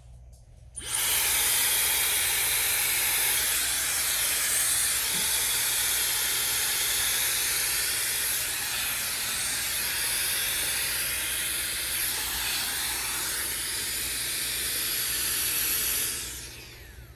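Handheld hair dryer blowing air steadily down a round brush. It comes on abruptly about a second in and winds down near the end, the dryer having gone out.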